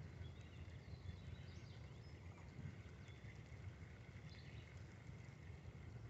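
Quiet outdoor ambience: a steady low rumble with a few faint bird chirps.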